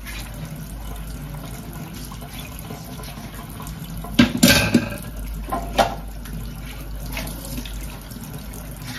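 Kitchen faucet running into a stainless steel sink while dishes are hand-washed in hot water. A few louder clatters of dishes come about four and six seconds in.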